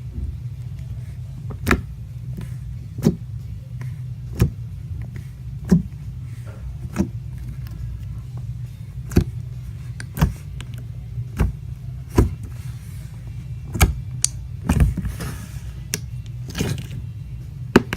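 Thick putty-like slime being handled, giving sharp pops and clicks about once every second or so over a steady low hum.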